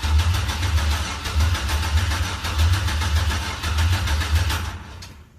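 Starter cranking the pickup truck's engine over, a fast, even churning with rhythmic low pulses from the compression strokes. It cuts off a little before the end without the engine catching.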